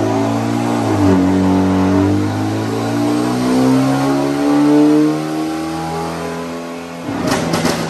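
A tuned Hyundai Genesis Coupe's 2.0-litre turbocharged four-cylinder is revving hard on a chassis dyno. Its pitch drops briefly about a second in, as at a gear change, then climbs steadily until it lets off about five seconds in. Near the end there is a rapid crackle.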